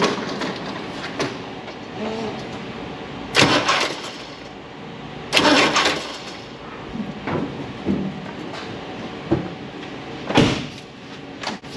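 A CAT 3126 diesel turned over by its starter motor in three short bumps, about three and a half, five and a half and ten and a half seconds in, rotating the crankshaft a little at a time.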